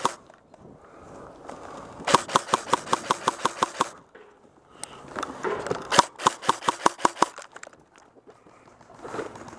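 Paintball marker firing in rapid strings of sharp shots, about ten a second: one burst of roughly two seconds about two seconds in, and a second burst of similar length about five seconds in.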